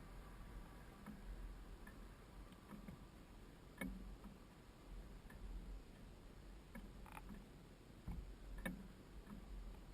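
Faint, irregular clicks and knocks over a low steady rumble, the sharpest about four, seven and eight and a half seconds in.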